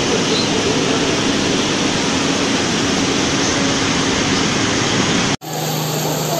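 Fast muddy floodwater rushing down a street, a loud, steady rush of water noise. A little over five seconds in it cuts off abruptly, and a different steady rush with a low hum follows.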